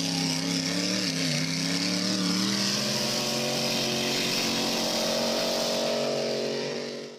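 Alcohol-fuelled racing speedboat engine running at speed as the boat passes, a steady drone over a hiss of wind and spray, fading out near the end.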